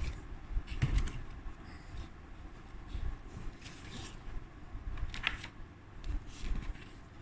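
Unboxing handling noises: packaging and items being moved about, with a few short rustles and scrapes and light knocks over a low rumble.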